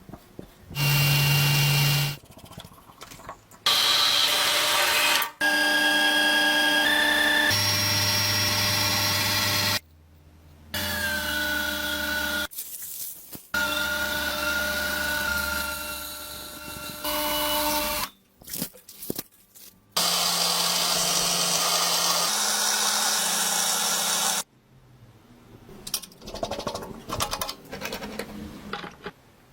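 Power tools running in a string of short, abruptly cut clips, each a few seconds long, with steady whines that change from clip to clip. Near the end come quieter, irregular light clicks and knocks of parts being handled.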